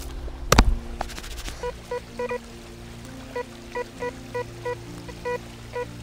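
Metal detector giving short beeps of one pitch, about a dozen in a few seconds, as the coil passes over targets in the ground. A single loud thump comes just over half a second in, followed by a few quick clicks, with a steady low hum underneath.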